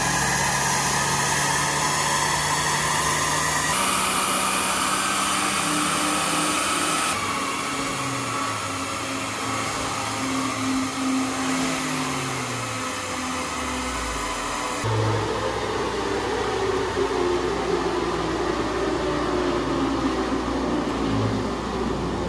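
Suzuki Jimny JB23W's 660 cc three-cylinder turbo engine running hard on a chassis dynamometer, with the rollers whirring under the tyres during a full-load power run. About two-thirds through the rushing sound drops away and a whine falls in pitch as the engine and rollers wind down. The power comes out well below the catalogue figure (57.3 PS against 64 PS), which the owner puts down to the engine's high mileage.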